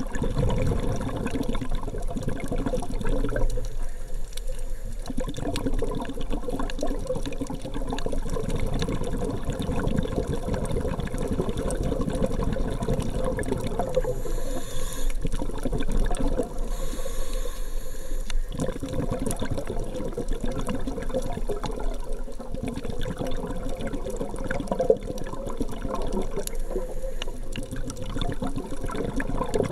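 Underwater noise heard through a waterproof camera housing: a steady, muffled rush and rumble of water, with a brief brighter hiss twice near the middle.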